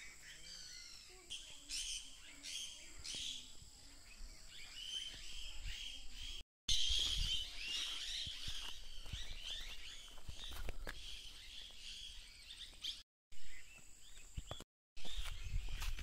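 A flock of parakeets calling, short shrill chirps repeated over and over, with a low rumble on the microphone in the second half.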